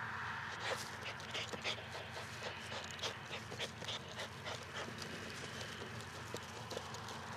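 Jack Russell terrier panting, with many short, irregular clicks and scuffs throughout.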